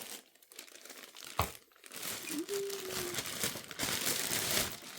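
Packaging crinkling and rustling as a boxed lamp is unpacked, after a single sharp knock about a second and a half in.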